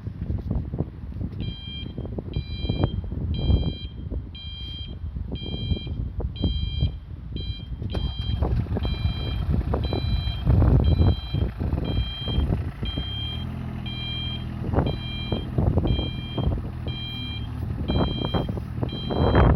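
Mini excavator's Yanmar three-cylinder diesel running, with a warning alarm beeping about one and a half times a second, starting about a second and a half in, over irregular clanks and knocks from the machine working.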